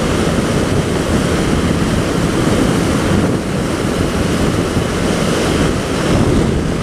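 Steady wind rush over the microphone of a moving motorcycle, with the Honda CB 300R's engine and road noise running underneath.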